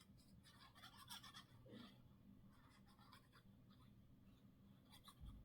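Near silence with faint rustling and scratching of paper being handled, in a few short clusters over a steady low hum.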